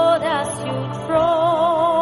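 Gospel worship singing over sustained accompaniment: a voice holds a note, slides through a short phrase, then about a second in settles on a long note with wide vibrato.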